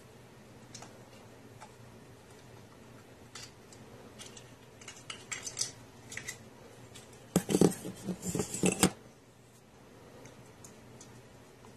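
Small hard objects being handled: scattered light clicks and knocks, then a denser, louder burst of clattering about seven and a half seconds in that lasts about a second and a half.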